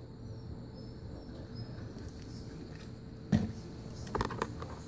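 Small taps and clicks of tools on a repair bench, one sharp knock about two-thirds of the way in and a quick run of clicks near the end, over a steady hum and a faint high whine.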